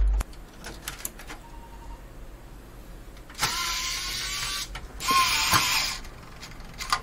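An electric screwdriver runs in two short bursts, each whirring up to a steady pitch, as the motherboard screws are backed out. Small clicks and clatter of screws and parts come before and after the bursts.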